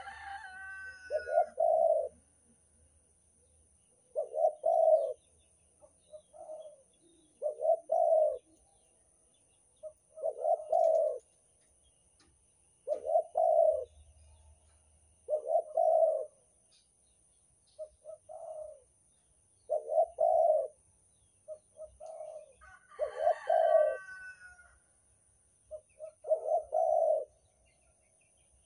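Spotted dove cooing: short phrases of low, throaty coos repeated every two to three seconds. Near the start and again about 23 seconds in, a higher call with several stacked tones sounds over the cooing.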